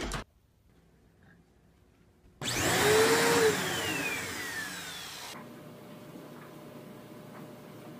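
A loud machine whir starts abruptly after about two seconds of near silence, with a high whine falling steadily in pitch as the noise fades, like a motor winding down. A quieter steady hiss follows near the end.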